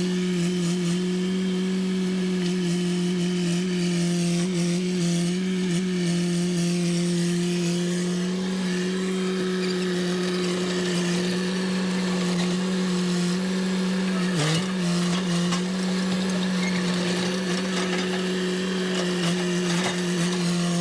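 Two-stroke chainsaw running at steady high revs while cutting wood, with a brief dip in pitch about 14 seconds in.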